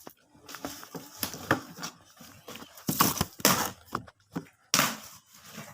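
Gift wrapping paper being torn and crumpled by hand in quick, uneven rips, louder about three seconds in and again near the end.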